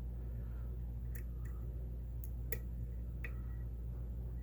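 A few faint, short metallic clicks of a lock pick probing the pins inside a pin-tumbler lock's keyway, over a steady low hum.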